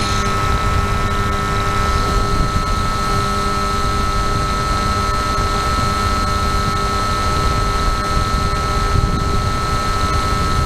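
FPV model plane's motor and propeller running steadily in flight: an even whine of several steady tones over heavy wind rumble on the onboard camera's microphone.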